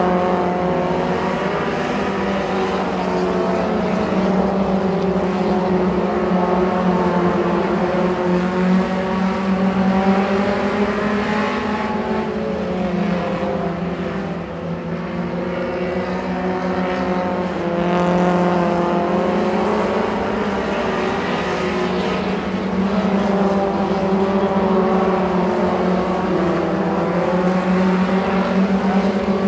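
Several mini stock race cars' four-cylinder engines running laps on a dirt oval. Their pitch rises and falls as the cars accelerate down the straights and lift for the turns, with several engines sounding at once.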